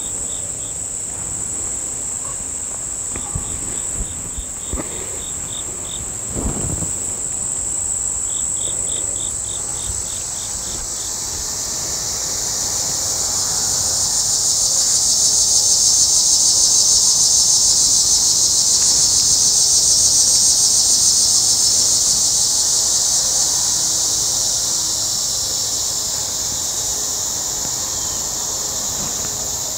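Chorus of insects: a steady high-pitched drone with short runs of rapid chirping pulses in the first ten seconds, then a louder buzzing chorus that swells up, peaks around the middle and slowly fades. A dull low knock comes about six seconds in.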